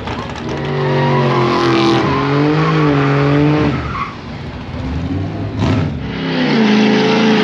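Pickup truck doing a burnout: the engine is revved and held high with the tires spinning, then eases off about three and a half seconds in. A sharp crack follows, and near the end the engine revs up again.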